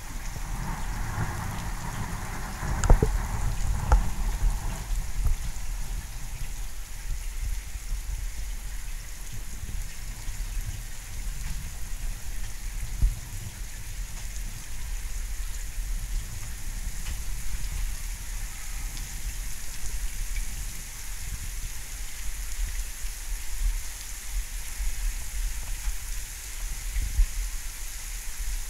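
Steady rain falling during a thunderstorm, with a few sharp taps of drops or knocks, the loudest about three seconds in.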